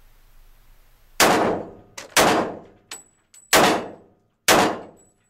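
Four pistol shots from a Smith & Wesson E-Series 1911, about a second apart, each echoing off concrete walls, with light metallic clinks between them. The string ends with the slide locked back on the empty magazine.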